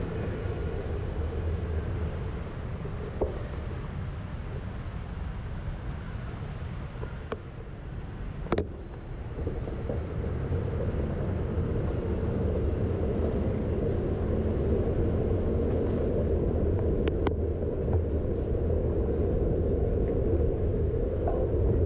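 Steady low rumble of riding a bicycle through city traffic, road and wind noise on a handlebar-mounted camera with cars and scooters passing. A single sharp knock comes about eight and a half seconds in.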